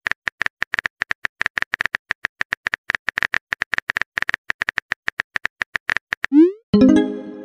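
Phone keyboard typing sound effect: rapid, evenly repeated clicks as a message is typed. Near the end comes a rising swoosh and a short chime as the message is sent.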